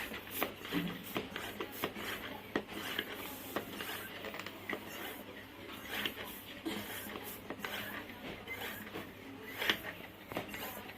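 Irregular small clicks, taps and rubbing from handling a football and its pump needle, with no steady rhythm.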